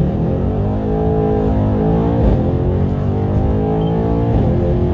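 Tuned Mercedes-AMG E63 S twin-turbo V8, fitted with aftermarket downpipes and blow-off valves, accelerating hard as heard from inside the cabin. The engine note climbs in pitch and drops at quick upshifts about two seconds in and again near the end.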